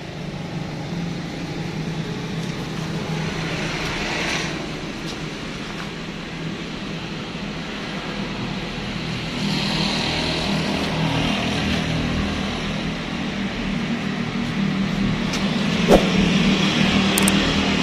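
A truck engine idling steadily with a low hum, with one short knock about sixteen seconds in.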